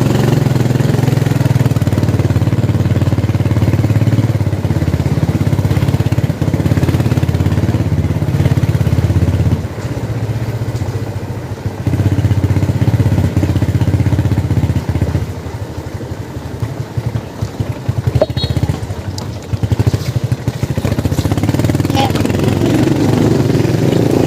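Motorcycle engine running while being ridden along a street, its steady note dropping back twice as the throttle eases and then picking up again.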